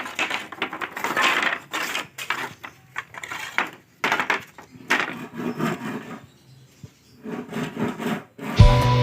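Pieces of wood knocking and clattering together in irregular bursts, as boards are handled and set down. Music with a steady beat starts near the end.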